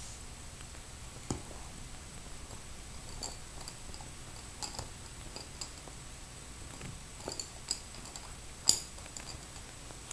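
Scattered light clicks and taps of wooden pencils knocking against one another and the table as they are handled, the loudest near the end, over faint room hiss with a thin, steady high whine.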